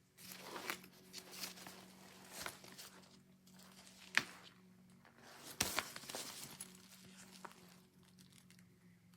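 Fabric travel backpack being handled: rustling and crinkling with scattered sharp clicks, the loudest about 4 and 5.5 seconds in.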